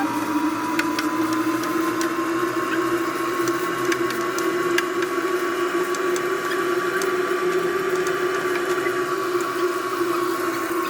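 A steady motor hum with two held tones that drift slightly in pitch, over a hissing noise with scattered light clicks.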